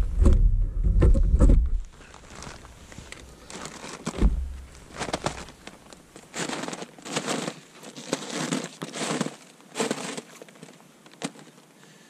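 Rumbling handling noise on the camera for about two seconds, then boots crunching in snow in an irregular series of steps.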